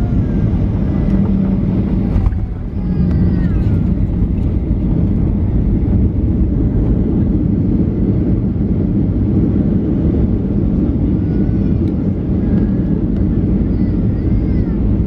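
Steady low rumble of a Boeing 737's engines and rolling wheels, heard inside the cabin as the jet moves along the ground after landing.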